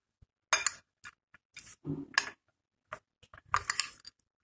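A metal spoon stirring chopped fruit and soaked chana in a glass bowl: scattered clinks and soft scrapes against the glass, with three louder clinks spread over a few seconds.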